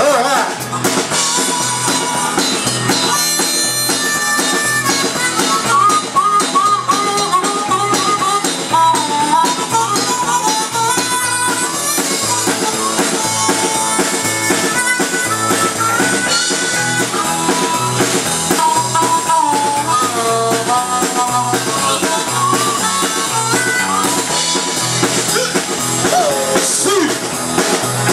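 Live blues band playing an instrumental break: a blues harp (harmonica) solo with bending notes, over acoustic and electric guitars, bass and a drum kit keeping a steady shuffle beat.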